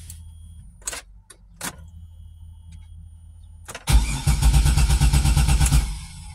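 Pontiac Grand Am's starter cranking the engine for about two seconds, a loud, fast rhythmic churning that stops abruptly without the engine catching. Before it come a steady low hum and a few light clicks.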